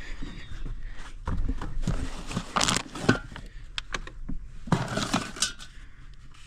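Small loose items being handled and moved about inside a tractor cab: clicks, knocks, clinks and rustles of plastic, in two busy spells.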